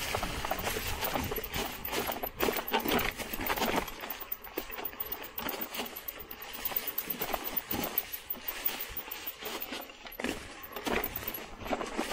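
Mountain bike tyres rolling over a trail thick with dry fallen leaves: irregular crunching and rustling, with sharp clicks and rattles from the bike as it goes over the bumps.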